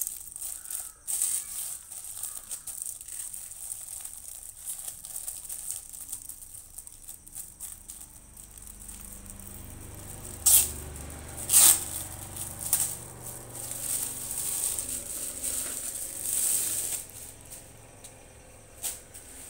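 Clear plastic wrapping film crinkling and rustling as it is handled and pulled off a door mat, with two sharp louder crackles a little past halfway.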